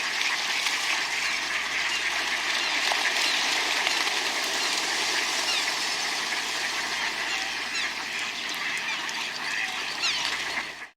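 A flock of ducks quacking continuously, many calls overlapping, over water splashing. The sound cuts off suddenly near the end.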